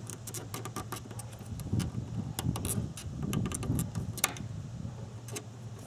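Small, scattered clicks and scrapes of a plastic fuel-line disconnect tool being pressed into the quick-connect fitting of a fuel line on the fuel pump assembly, handled with gloved fingers; the sharpest click comes about four seconds in.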